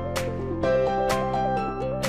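Background music: a gentle melody over held chords, with a light percussive hit about once a second.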